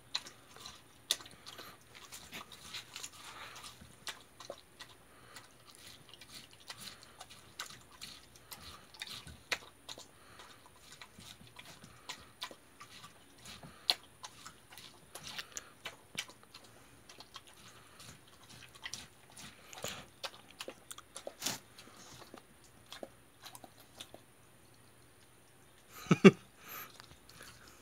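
Jindo dog chewing and crunching watermelon flesh and rind: irregular wet bites and crisp crunches, scattered throughout. The chewing pauses shortly before the end, followed by one louder short smack near the end.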